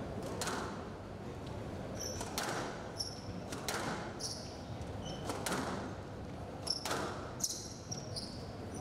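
Squash rally: the ball knocked hard by rackets and off the court walls about five times, roughly one hit every second and a half. Short high squeaks of court shoes on the floor come between the shots.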